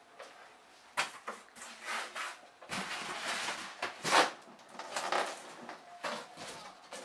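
A cardboard shipping box being handled: a flat cardboard sheet laid into it and pressed down against the flaps, with scraping, rustling and knocks. A sharp knock comes about a second in, and the loudest scrape about four seconds in.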